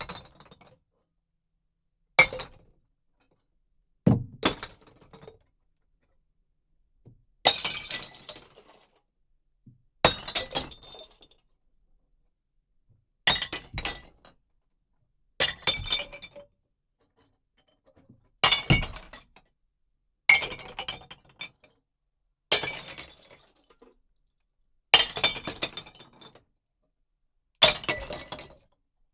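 Glass bottles dropped into a bottle bank and smashing, one after another about every two to three seconds. Each is a sharp crash followed by a brief tinkle of shards that dies away within about a second.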